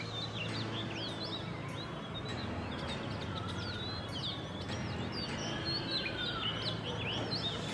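Birds chirping: many short, high calls that sweep up and down, overlapping one another, with two longer, lower whistles about three and six seconds in, over a steady low hum.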